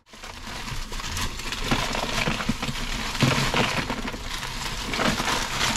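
Bagged ice cubes poured from a plastic bag into a plastic cooler box, the cubes clattering and rattling in a dense, continuous run of small knocks.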